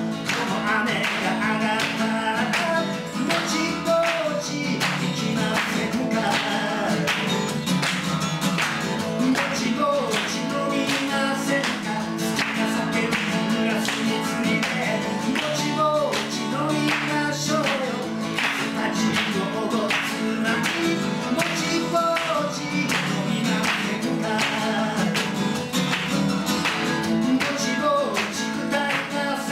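Upbeat song played live on a briskly strummed acoustic guitar, with a sung melody over the steady strumming.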